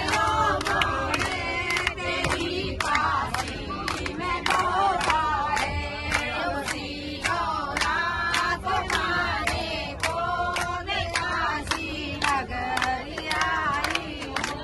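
A crowd of men and women singing a festive devotional song together to steady hand-clapping.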